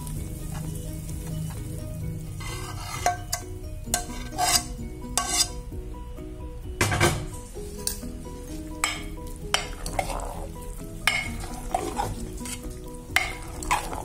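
Metal spoon scraping hot masala out of a frying pan into a pot of mashed turnips and then stirring it in, giving irregular scrapes and clinks against the metal over a faint sizzle.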